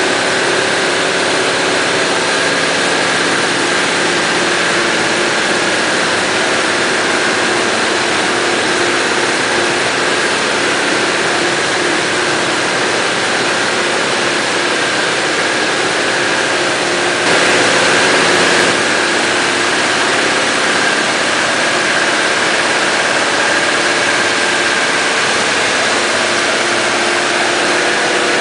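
Industrial parts washing machine running: a steady, loud mechanical noise with a constant hum, swelling louder for a moment about two-thirds of the way through.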